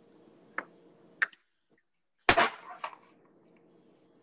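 Light clinks of cutlery on dishes, then a louder sharp knock with a short ring about two seconds in and another clink just after, as a fork is picked up from the counter beside a plate and a small bowl.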